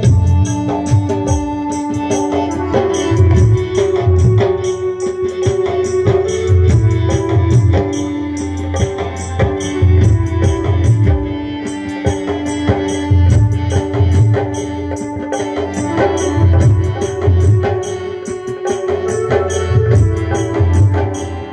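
A live devotional bhajan band plays an instrumental passage: a hand-played barrel drum keeps up a rhythmic beat under a held keyboard melody, with high jingling percussion keeping time.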